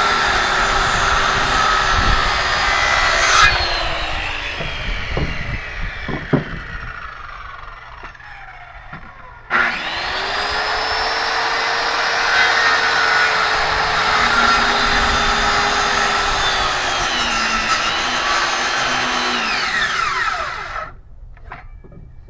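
Electric power saw cutting wood: the motor runs, spins down with a falling whine, is started again with a rising whine, bogs slightly in pitch as the blade goes through the board, and spins down again near the end.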